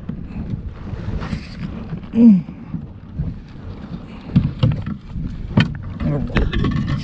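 Wind buffeting the microphone over a steady low rumble of water around a plastic fishing kayak, with a short voice-like sound falling in pitch about two seconds in. From about four seconds on come several sharp knocks and rattles as an aluminium-handled landing net is handled against the kayak.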